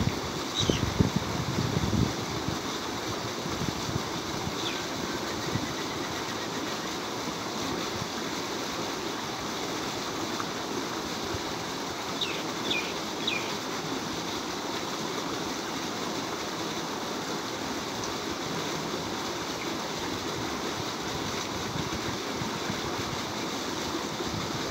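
Water gushing steadily from a tubewell outlet pipe and splashing into a concrete tank: a continuous rushing noise. A few low thumps come about one to two seconds in, and short high bird chirps are heard a few times.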